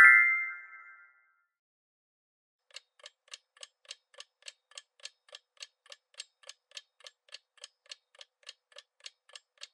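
Clock-ticking sound effect of a quiz countdown timer, a steady tick about three or four times a second, starting about three seconds in. A chime rings at the very start and fades out within the first second.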